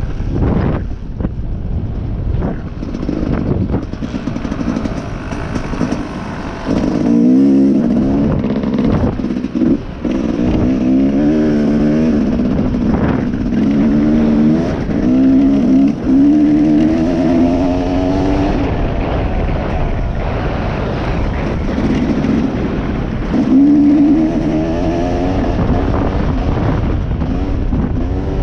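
Dirt bike engine running under way, its pitch rising and falling over and over as the throttle is opened and closed.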